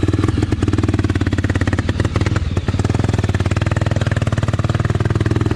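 Honda Tornado 300cc single-cylinder trail motorcycle engine running steadily at low revs, with quick, evenly spaced firing pulses.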